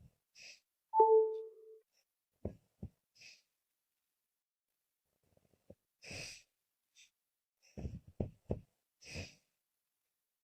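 A sleeping woman's laboured breathing: airy breaths about every three seconds, with short low throaty catches between them, three in quick succession a little before the end. About a second in, a brief chime-like tone sounds, the loudest thing heard.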